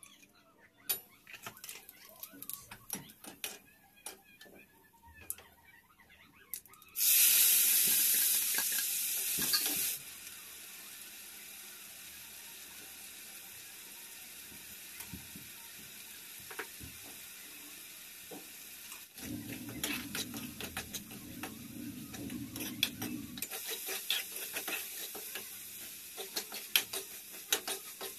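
Food frying in hot oil in an iron kadhai: a sudden loud sizzle about seven seconds in that drops after about three seconds to a faint steady frying hiss. Scattered metal clinks of utensils come before it, and a metal spatula scrapes and stirs the potato and soya-chunk masala near the end.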